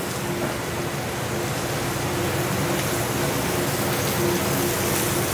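Veal saltimbocca frying in a hot sauté pan, just turned: a steady sizzle, with a faint steady hum underneath.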